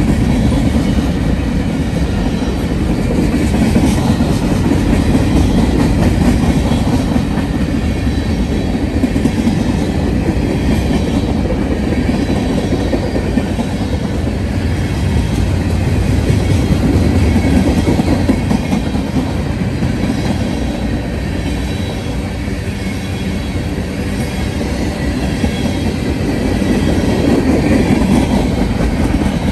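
Freight cars of a long mixed freight train (boxcars, covered hoppers and tank cars) rolling past close by: a steady, loud rumble with a continuous clatter of steel wheels on the rails.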